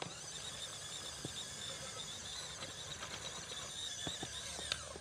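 WPL D12 RC mini pickup's electric drive whining steadily and high as it crawls over dirt and grass, with a few light clicks, the sharpest near the end.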